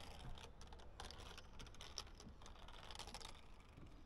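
Faint scattered light clicks and rustling from a climber moving about and handling gear.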